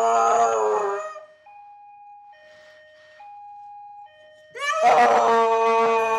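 A dog howling: one long howl sliding down in pitch ends about a second in, then a second long howl starts near the end. In between, a few quiet steady electronic notes play.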